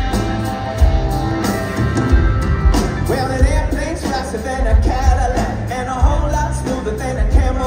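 Live pop-rock band playing, with a male lead singer coming in about three seconds in.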